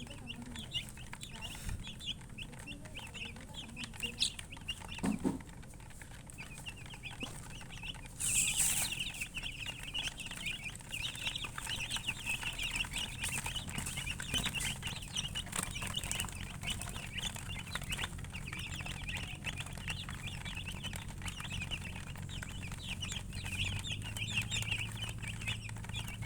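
Chickens chirping: many short, high peeps, sparse at first and then dense and overlapping from about eight seconds in. A brief burst of noise comes just as the chirping picks up, over a steady low hum.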